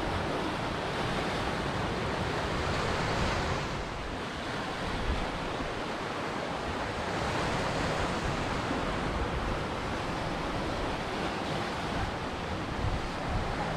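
Ocean surf: a steady rush of waves washing in, swelling and easing every few seconds.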